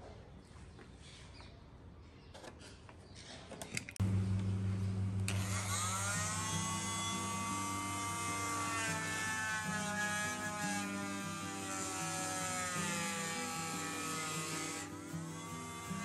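Cordless oscillating multi-tool plunge-cutting into the wooden edge of a door to cut out the pocket for a mortise lock. It starts abruptly about four seconds in and runs with a steady buzz, its pitch sagging and recovering as the blade bites into the wood.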